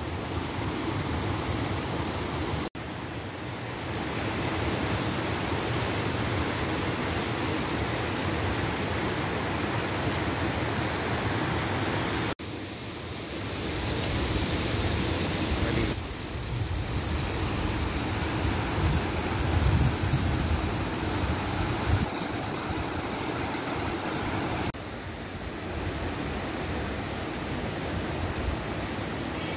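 Rocky stream rushing steadily over boulders, broken by two sudden cuts about 3 and 12 seconds in. Some low rumbling joins it about two-thirds of the way through.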